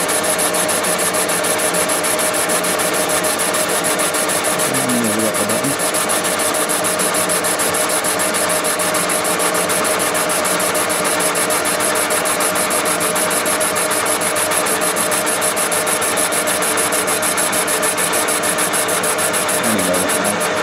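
Thompson boring bar running under power, its carbide cutter boring out the engine's cylinder: a steady machine whir with a fine, fast, even rasp and a constant high whine. The high whine stops at the very end, as the cutter reaches the bottom of the bore and the feed drops out into neutral.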